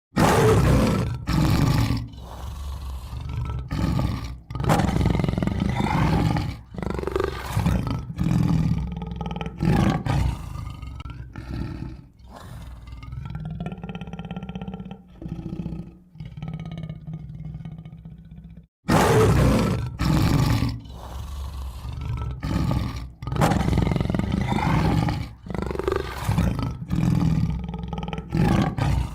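Recorded tiger roars and growls, a run of deep calls each lasting a second or two with short breaks between them. The sequence cuts off abruptly about two-thirds of the way through and starts over.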